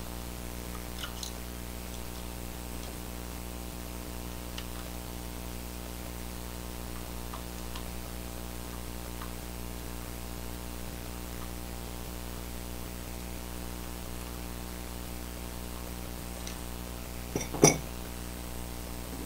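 Steady electrical hum with a few faint small clicks of a screwdriver working the screws on an LED bulb's circuit board. Near the end, one sharp clatter, as screws are dropped into a ceramic mug.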